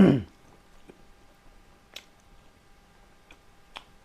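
A single loud, short thump right at the start, then a few faint sharp clicks spread over the next few seconds: close-miked eating sounds.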